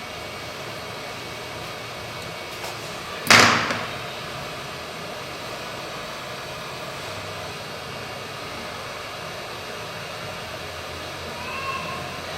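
Steady airflow hiss of a hot-air rework station blowing during phone motherboard solder work. About three seconds in there is one sudden loud rush of noise, and near the end a short electronic beep.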